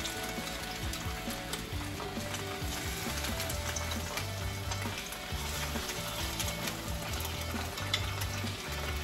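Snow crab coated in crushed hot Cheetos sizzling in hot oil in a frying pan, with a constant hiss and many small crackling pops as more pieces go in.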